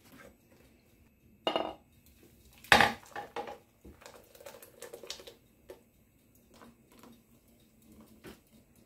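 Jata blender's plastic jar knocked as it is lifted off its base, with two sharp knocks, the louder about three seconds in. Then a thick liquid is poured from the jar into a glass flan mould, with light clinks and a soft hiss.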